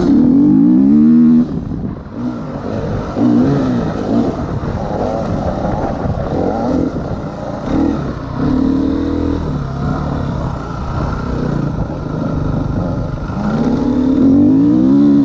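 Dirt bike engine being ridden hard over a motocross track, revving up in rising sweeps several times. The throttle shuts off sharply about a second and a half in, and the engine climbs again near the end.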